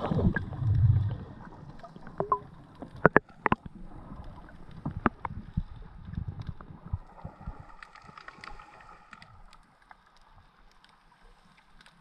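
Underwater sound as heard by a diver's camera, with no speech. A low rumble of water movement and handling comes in the first second. Sharp clicks and knocks follow, two close together around three seconds in and another about two seconds later. It then settles to a faint hiss with scattered small ticks.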